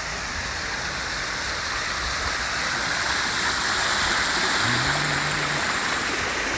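Fountain water splashing into a stone basin: a steady rushing patter that grows a little louder about halfway through, when the fountain is passed close by.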